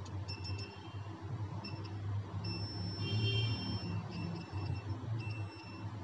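Digital multimeter beeping in continuity mode as its probes touch the capacitors on a phone motherboard: a run of short beeps and one longer beep, over a second long, about two and a half seconds in. The beep is the sign of a short circuit across the capacitors.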